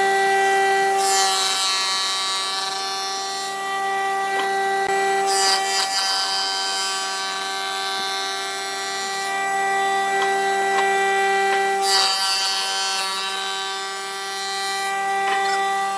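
Wood lathe running with a steady whine while a turning tool cuts the spinning wood, its hiss rising three times, about a second in, near the middle and about twelve seconds in.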